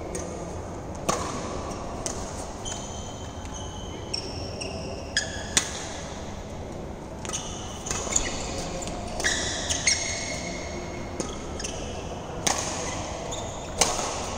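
Badminton rackets striking a shuttlecock in a doubles rally: sharp cracks every second or two, the loudest near the end. Between the hits come high, drawn-out squeaks of court shoes on the court mat.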